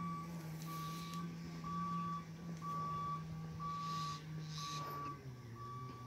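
Electronic warning beeper sounding about once a second, each beep a single high tone about half a second long, over a steady low hum.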